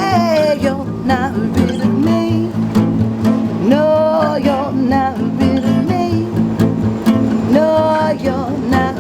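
Live acoustic band music: a singer holding long, sliding notes over strummed guitar and an upright bass.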